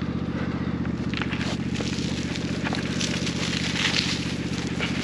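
DR wood chipper attachment on a DR XL Pro, its engine running steadily while branches crackle and crunch as they are fed through and chipped.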